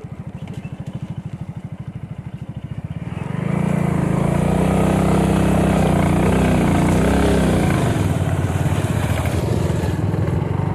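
Small motorcycle engine chugging at low revs, then opening up about three and a half seconds in and running loud and hard, labouring uphill on a steep off-road climb.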